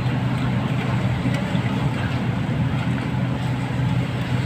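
Steady low mechanical hum, with hands squishing and mixing raw chicken pieces in marinade in a metal tray.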